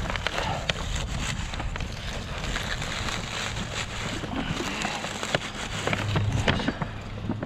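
Wind rushing over the microphone, with a few scattered crackles and rustles from handling and movement.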